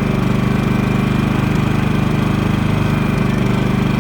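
Champion 3400-watt inverter generator's single-cylinder four-stroke engine running steadily with its fuel valve shut off, burning off the fuel left in the carburetor before it stalls.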